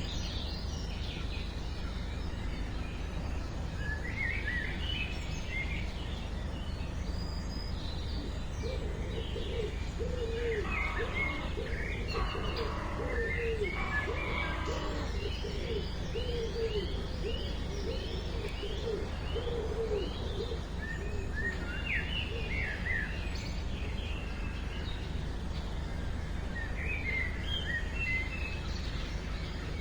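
Birds chirping and calling, with a long run of quick, low repeated notes through the middle, over a steady low background rumble.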